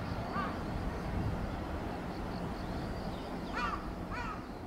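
A crow cawing: one caw about half a second in, then a quick run of caws near the end, over a steady low rumble.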